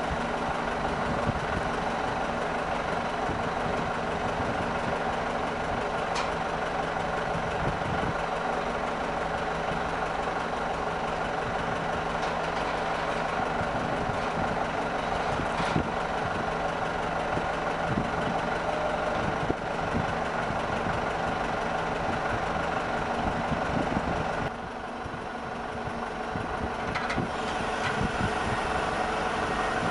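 Construction-site machinery running steadily, a mechanical hum with several steady tones. It drops suddenly about 24 seconds in and builds back up over the next few seconds.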